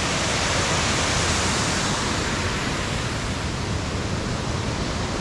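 Large waterfall crashing into a pool: a steady, full rush of falling water.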